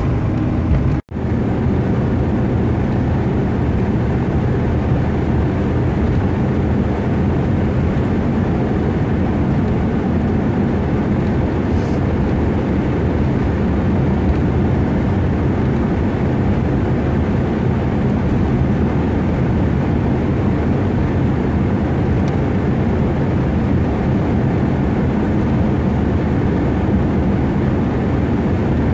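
Steady engine and tyre drone inside a moving vehicle's cabin at road speed, broken by a brief dropout to silence about a second in.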